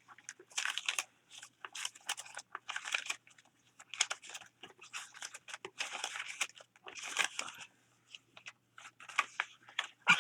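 Paper rustling and crinkling in short, irregular bursts as loose magazine cutouts are shuffled through by hand.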